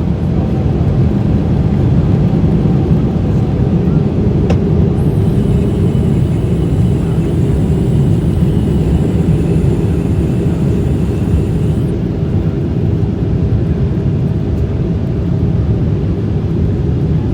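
Boeing 777-300 airliner on landing approach: the steady, deep rumble of engines and rushing air. A faint high whine comes in about five seconds in and stops about seven seconds later.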